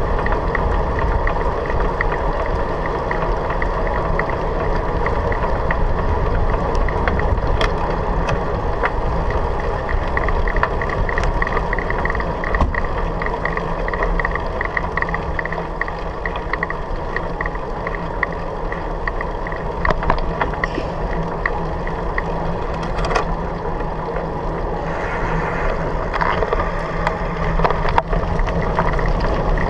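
Riding noise picked up by a handlebar-mounted camera on a moving bicycle: steady wind and tyre rolling noise, with a few sharp knocks from bumps. Near the end the noise turns rougher as the tyres go onto gravel.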